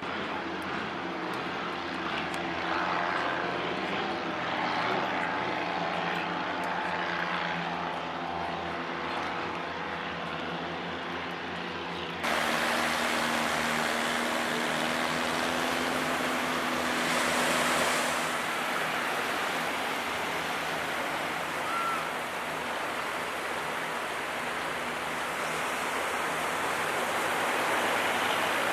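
A steady engine drone for the first twelve seconds. After an abrupt change about twelve seconds in, a steady rushing noise like surf and wind follows, with a lower engine hum that fades out about eighteen seconds in.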